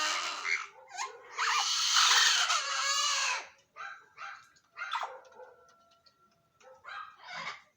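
Several parrots squawking and calling, with a long harsh screech from about a second and a half to three and a half seconds in, then shorter calls and a thin, steady whistle.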